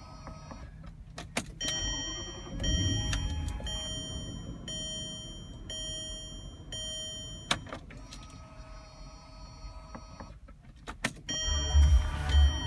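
Range Rover that won't start: several sharp clicks, a dashboard warning beep repeating evenly for a few seconds, and short bursts of low whirring, about two and a half seconds in and again near the end.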